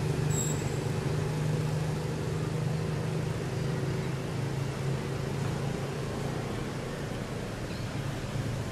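A motor's steady low hum over a constant background hiss; the hum fades about halfway through.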